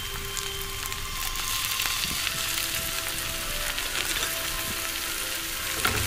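Onions, green chillies and chopped tomatoes frying in hot oil in a non-stick pan: a steady sizzle.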